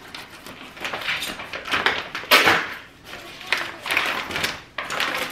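Plastic wrapping on a rolled rug crinkling and tearing as it is pulled off, in several separate rustling bursts, the loudest about halfway through.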